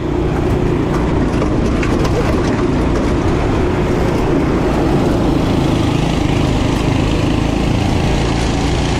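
Off-road go-kart's small engine running steadily under throttle, heard from the driver's seat while driving over a dirt track.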